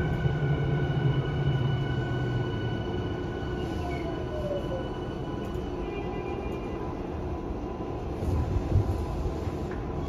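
Interior of a Yokohama Minatomirai Railway Y500 series electric train slowing to a stop. The whine of its Hitachi IGBT inverter falls in pitch over the first few seconds while the wheel-on-rail rumble fades as the train slows. There is a short thump about eight to nine seconds in as the train comes to a halt.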